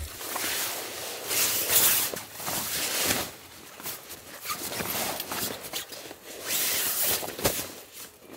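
Irregular rustling and scraping of fabric and gear on a tarp ground sheet as a person kneels and crawls into a low shelter, with a few sharp clicks along the way.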